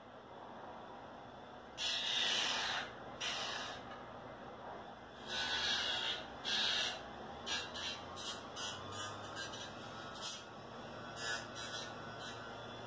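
A grinder grinding down the old plastic coupler pad of a model locomotive shell in repeated passes: hissing bursts, a few longer ones in the first half, then quicker, shorter touches.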